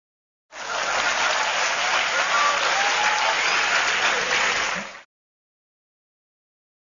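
Crowd applauding and cheering. It starts about half a second in and cuts off abruptly around five seconds.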